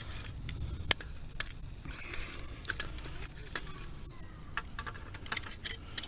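Charcoal being shifted in a grill fire: scattered sharp clicks and crackles, with one louder knock about a second in, over a low rumble of wind.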